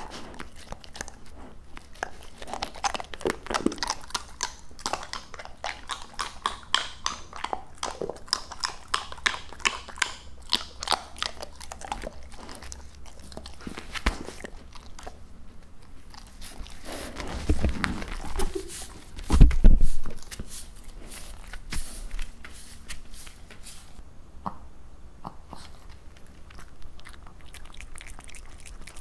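A Labrador retriever chewing raw duck close to the microphone: quick, wet biting and crunching clicks, dense at first and thinning out after about twelve seconds. A louder low thump comes about two-thirds of the way in.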